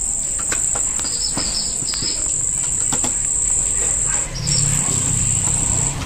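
Steady high-pitched trill of crickets, with faint scattered clicks and a few short chirps between about one and two seconds in.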